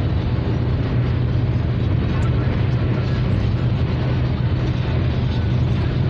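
Steady road and engine noise inside a car's cabin at highway speed, dominated by a deep hum.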